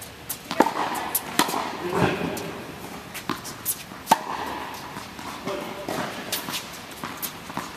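Tennis balls struck by a racket and bouncing on a hard indoor court: a series of sharp pops, the loudest about half a second, two seconds and four seconds in, with fainter ones between.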